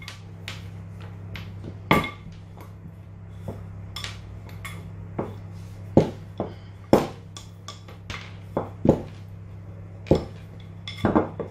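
Wooden rolling pin rolling out thin dough strips on a wooden worktop, knocking and clacking against the board at irregular moments, loudest about six and seven seconds in, over a steady low hum.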